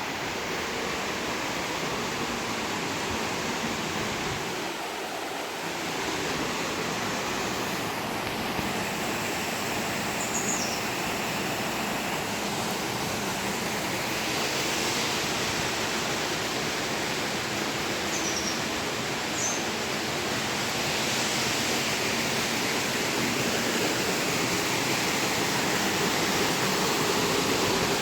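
Steady rush of falling water from a waterfall, growing a little louder toward the end. A few brief high chirps sound over it partway through.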